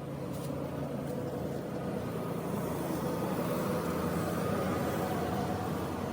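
Steady vehicle running noise: a low, even engine hum under a broad hiss, rising in level about the first second.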